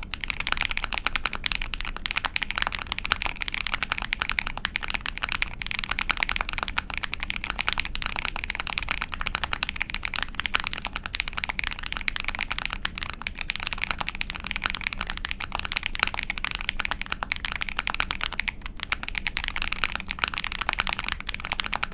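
Continuous rapid typing on a mechanical keyboard: an ai03 Vega with a POM plate, Krytox 205g0-lubed Techno Violet linear switches and GMK keycaps, the keystrokes running together in a dense clatter.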